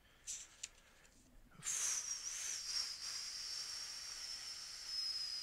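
Two faint clicks, then a steady hiss with a thin, high whistling tone running through it starts about a second and a half in.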